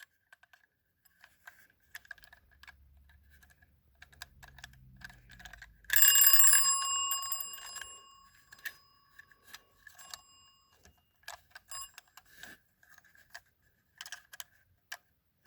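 Scotsguard wind-up fire alarm bell struck once about six seconds in, a single ding that rings on and fades over a few seconds, with small clicks of the mechanism being handled before and after.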